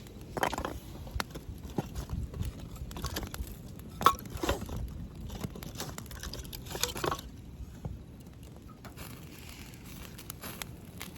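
Irregular knocks, taps and rustling of things being handled, with a few louder knocks about half a second, four, four and a half and seven seconds in.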